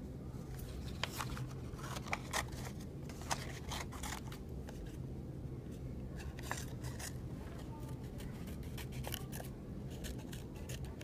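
Scissors cutting construction paper: short, irregular snips, some in quick clusters, cutting around a small glued-on paper circle.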